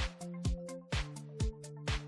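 Background electronic dance music with a steady four-on-the-floor kick drum, about two beats a second, over held bass and synth notes.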